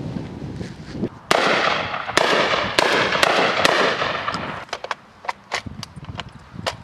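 UTAS XTR-12 semi-automatic 12-gauge shotgun firing a rapid string of shots starting about a second in, each bang trailing off in a long rolling echo. A few fainter sharp cracks follow near the end.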